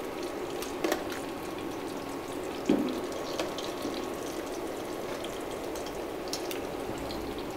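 Plantain slices frying in a pot of hot oil: a steady sizzle with fine crackling, on their second fry. A couple of brief knocks from the utensils come about one and three seconds in.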